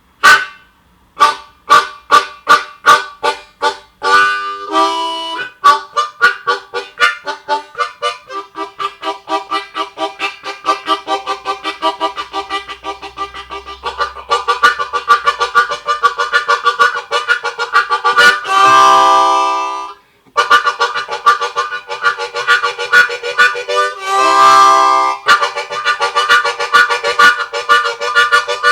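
Hohner Special 20 diatonic harmonica playing a train imitation: chugging chords that start slow and speed up to a fast steady rhythm, broken by long held whistle chords, the longest about two-thirds of the way through.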